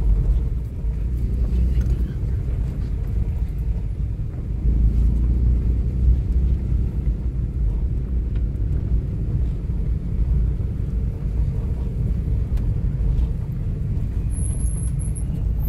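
A car driving along a road, a steady low rumble of engine and tyres.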